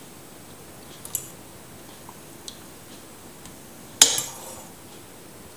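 Metal fork knocking against a stainless steel pot while fishing cooked white asparagus out of the water: a few light taps, then one loud clink about four seconds in that rings briefly.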